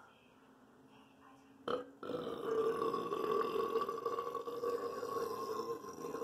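A person belching: one long, drawn-out burp at a nearly steady pitch, starting about two seconds in and still going near the end.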